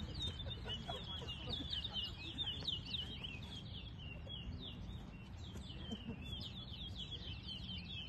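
Caged towa-towa songbird singing a fast, twittering song of rapid high chirps, thinning briefly midway, over a steady low rumble.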